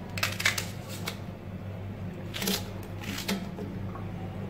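Chunks of raw onion dropped by hand into an aluminium pressure cooker onto mutton and spices: a few short, light knocks and rustles, the clearest about two and a half seconds in, over a steady low hum.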